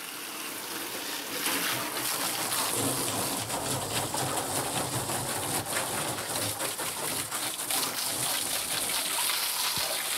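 Garden-hose water stream splashing against a John Deere tractor's radiator and the underside of its raised hood, a steady spattering hiss. It gets louder about a second and a half in.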